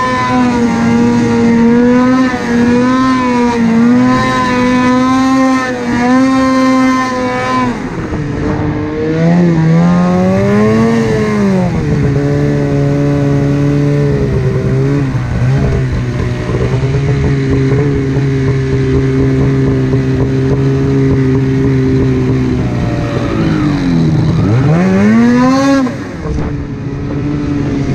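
Snowmobile engine running hard at high revs with a wavering pitch, then the throttle eases off about eight seconds in. After a short rev it settles at a lower, steady pitch, and near the end it dips and revs up sharply before backing off again.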